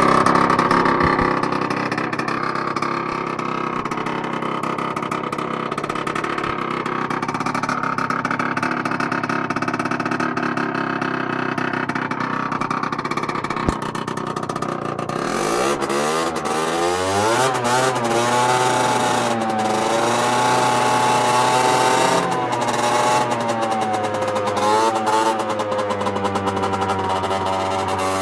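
Derestricted Peugeot Jet Force C-Tech scooter's two-stroke engine, breathing through a Tecnigas RS II exhaust, running steadily at first. A single click comes shortly before halfway. Then the engine is revved again and again, its pitch rising and falling.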